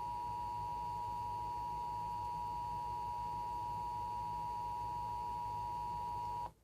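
NOAA Weather Radio's 1050 Hz warning alarm tone: a single steady pure tone that cuts off abruptly near the end. It marks an Emergency Alert System broadcast of a tornado watch.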